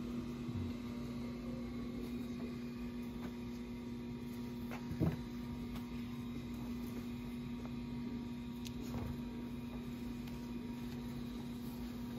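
Steady electrical hum, one low even tone, with a few faint taps and a soft knock about five seconds in from old comic books being handled on a table.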